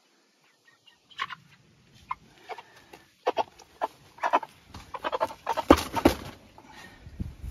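A white meat chicken squawking and flapping its wings hard as it is caught by hand and carried, in a run of sharp flaps and cries from about a second in that is loudest at about five to six seconds in.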